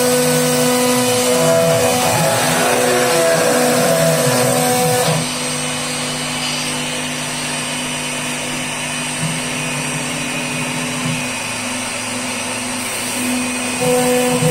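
CNC router spindle running steadily while cutting an MDF sheet, a constant machine noise with a thin high whine. It gets slightly quieter about five seconds in.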